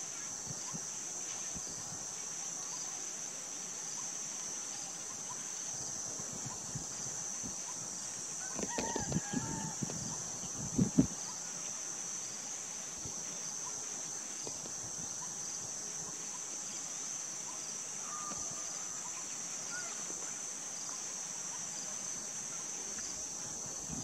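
Insects droning steadily at a high pitch. About nine seconds in comes a brief cluster of lower sounds with a short call, then a single sharp knock about two seconds later.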